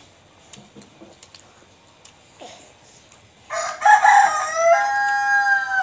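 A rooster crowing once, starting about three and a half seconds in: a rough opening followed by a long held note that drops in pitch as it ends. Faint clicks come before it.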